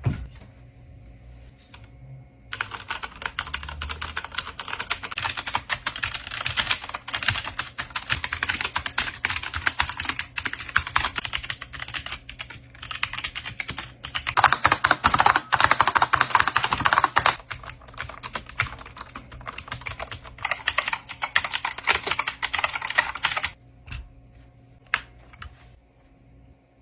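Fast typing on computer keyboards: a dense run of clicking keystrokes that starts about two and a half seconds in and stops a few seconds before the end. It is loudest for a stretch in the middle.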